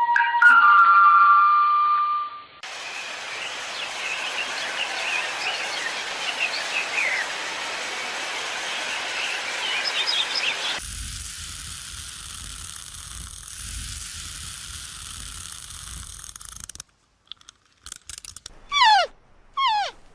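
Several short animal recordings cut together. A loud held call opens it, followed by birds chirping over a steady hiss, then a stretch of hiss and low rumble, and near the end a few separate calls that fall in pitch.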